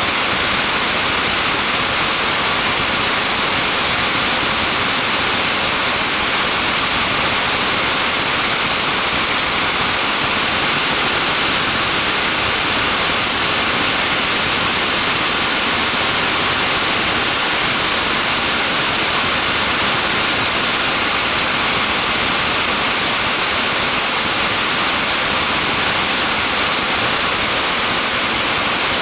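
Small jet engine running steadily at high power: a loud, even rushing blast of exhaust noise that holds the same level throughout.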